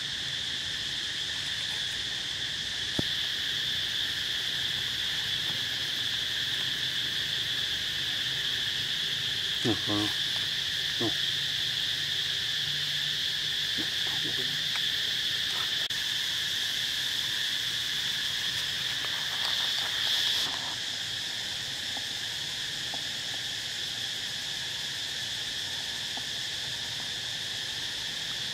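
Steady high insect chorus, a continuous drone, with a few brief clicks and short sounds about ten seconds in and again around twenty seconds.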